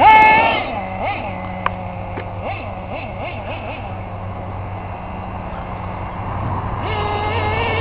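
Team Associated RC10GT's small nitro glow engine revving in bursts as the truck is driven. It gives a loud rev right at the start, then its pitch rises and falls as the throttle comes and goes, and it revs up louder again near the end.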